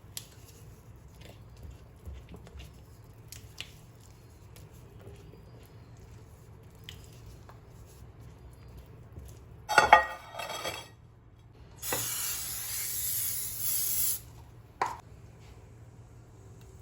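Kitchen handling sounds: faint clinks, then a loud clatter of dishes and utensils about ten seconds in, a steady hiss lasting about two seconds, and a single knock near the end.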